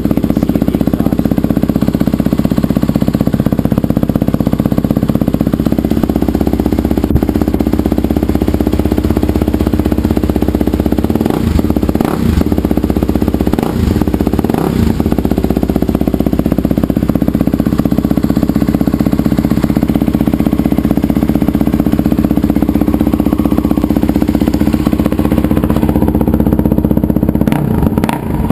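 Husqvarna TE511 dirt bike's single-cylinder four-stroke engine running at a steady idle.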